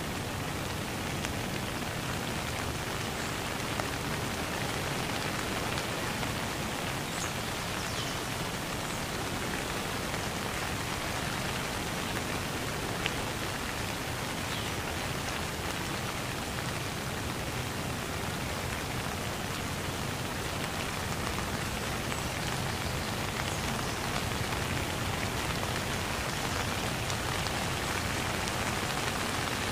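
Steady rain falling on wet ground, an even, unbroken hiss of many drops with a few single drips standing out now and then.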